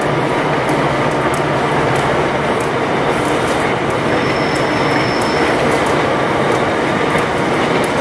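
Heavy freight train passing, a steady rumble and rail noise of its wagons running by.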